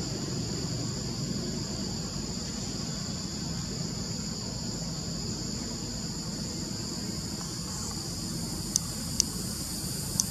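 Steady high-pitched drone of insects, two even unbroken bands of sound over a low rumble, with two sharp clicks near the end.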